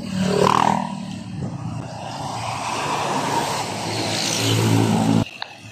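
Heavy truck hauling a shipping-container trailer passing close by: engine drone and tyre noise on the road growing louder, then cutting off suddenly near the end.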